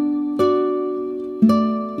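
Background music: a plucked string instrument playing slow, ringing notes, about one a second.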